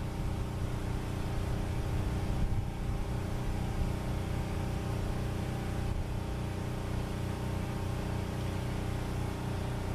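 An engine running steadily at a constant speed, a continuous even drone.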